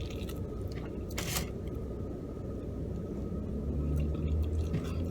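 Quiet eating sounds inside a car: soft mouth and food clicks and a short rustle about a second in, over a steady low rumble.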